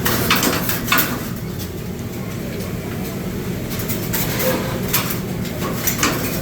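Steady low rumble of a busy restaurant grill area, with metal utensils scraping and clanking on the flat-top grill a few times, twice near the start and twice near the end.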